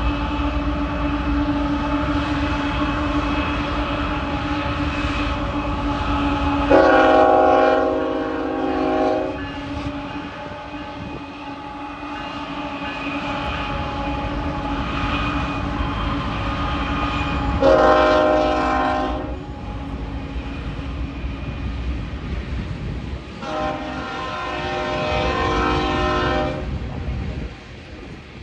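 Union Pacific diesel freight locomotives running under load with a steady drone and low rumble, sounding the air horn three times: a blast of about two seconds, a shorter one, then a longer one. The rumble fades away near the end.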